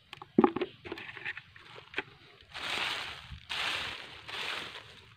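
Footsteps crunching through dry leaf litter, about one step a second through the second half. Before that come a few sharp knocks and clicks, the loudest about half a second in.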